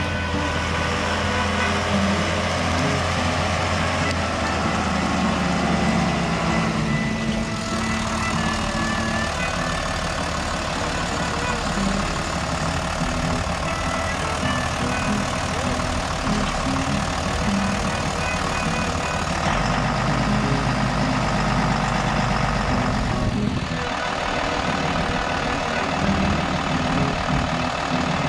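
Heavy diesel engine running steadily, its pitch shifting a few seconds in and again about two-thirds of the way through, as the engine speed changes.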